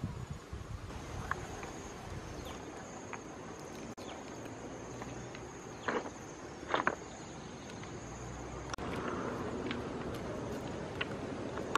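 An insect's steady high-pitched trill, with two sharp clicks about six and seven seconds in.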